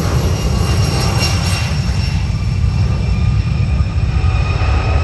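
Engines of an Air Canada Jazz regional airliner running loud: a steady deep rumble with several high, even whining tones on top.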